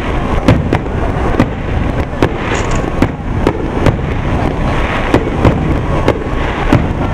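Aerial firework shells bursting during a fireworks finale barrage: a dense run of sharp booms, about two or three a second, over a continuous noisy haze.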